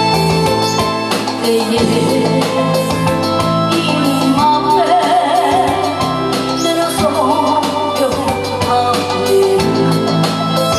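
A woman singing into a microphone over amplified backing music with a steady drum beat.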